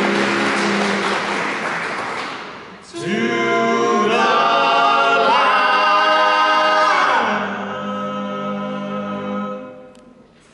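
Barbershop quartet of four men's voices singing the closing chords a cappella. A held chord fades, and about three seconds in a new loud chord begins with voices sliding up and back down in pitch. It then steps down to a lower, softer final chord that dies away near the end.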